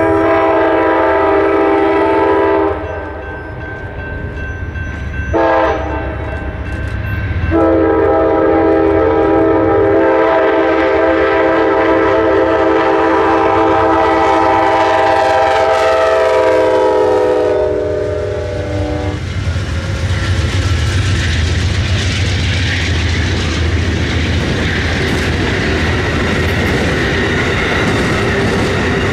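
Amtrak GE P42DC Genesis diesel locomotive's multi-chime air horn sounding a long blast, a short one and a long held blast, the pattern that ends a grade-crossing signal; the pitch of the last blast sags as the locomotive goes by. The passenger cars then roll past with a steady rumble and clickety-clack of wheels on rail joints.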